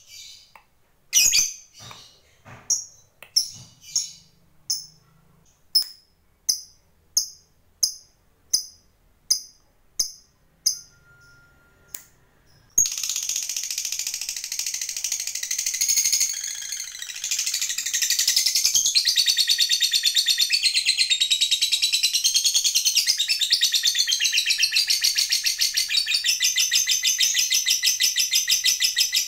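A Fischer's lovebird gives evenly spaced single sharp chirps, about three every two seconds. About halfway through it breaks into a long unbroken rapid chattering trill: the 'ngekek panjang' long trill of a lovebird in full song.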